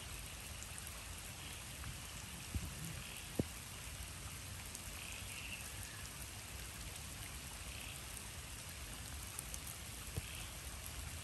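Steady rain falling on wet bush and floodwater, with a few sharp single drop hits close by.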